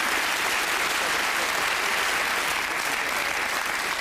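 Studio audience applauding steadily at the end of a round of a TV panel show.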